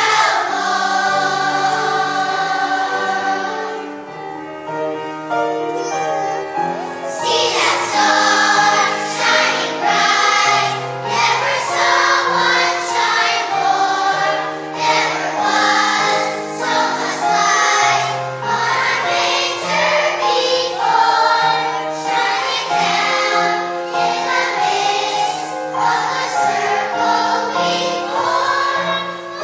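Children's choir singing with musical accompaniment, held notes with vibrato over steady low notes; the singing drops back for a few seconds early on and comes in fuller about seven seconds in.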